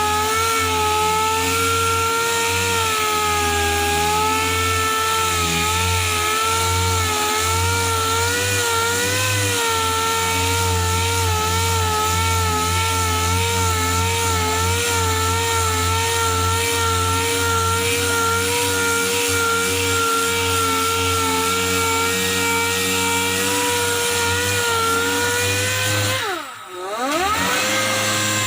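Handheld electric power tool running steadily at high speed with a whine that wavers slightly in pitch. Near the end it spins down briefly and winds back up to speed.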